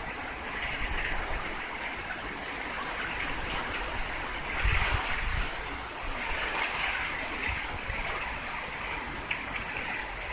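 Typhoon wind and rain rushing through a narrow gap in an open apartment window, a steady roar that swells and eases in gusts. A heavy low buffet of wind hits the microphone about halfway through.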